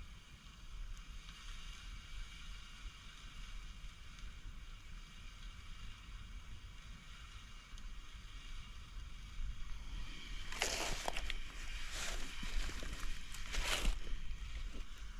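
Steady outdoor wind and water noise on the microphone. About ten seconds in comes a cluster of short, loud rustling noise bursts lasting a few seconds.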